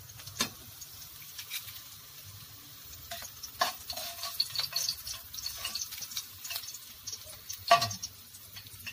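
Hot oil sizzling and crackling in a wok with fried tinapa (smoked fish), with a few sharp clicks of a metal spatula against the pan, the loudest near the end.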